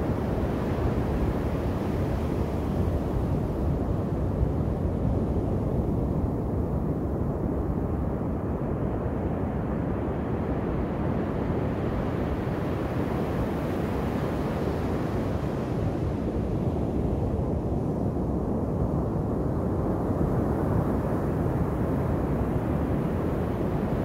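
Ocean surf breaking and washing up a sandy beach, a steady low rush with wind buffeting the microphone. The higher hiss of the wash swells near the start and again near the end.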